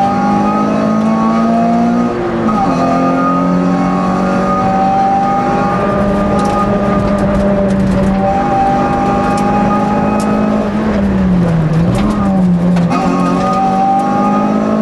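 Race car engine pulling hard at high revs, heard from inside the cabin on a hillclimb run. The note mostly holds steady, dips in pitch briefly about two seconds in, and drops and recovers again for about two seconds near the end, as at gear changes or lifting off.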